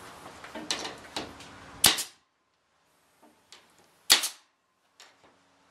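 Pneumatic stapler driving staples through the aluminium side skin into the trailer's wooden wall framing: two sharp shots about two seconds apart, with fainter clicks of the tool between them.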